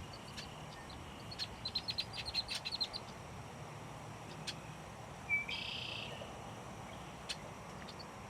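Wild birds calling: a rapid run of short high chirps about a second in, then a single short, harsher call about five seconds in, over a faint steady outdoor background.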